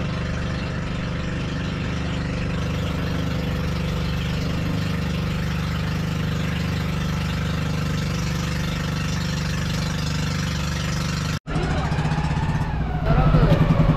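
Outrigger bangka boat's engine running steadily under way, an even low drone with water rushing past the hull. A brief dropout about eleven seconds in, after which the engine is louder with a fast, even chugging pulse.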